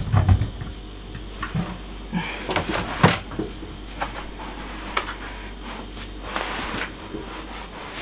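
Small bar fridge being moved and set into place: scattered knocks and bumps, the loudest about three seconds in, over a steady low hum.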